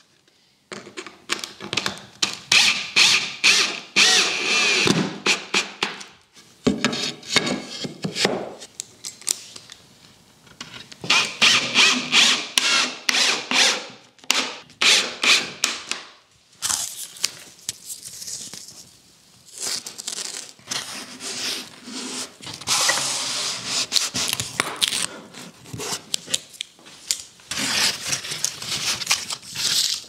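Cordless drill running in repeated bursts of a few seconds each, drilling and driving screws into pine boards, with short pauses between bursts.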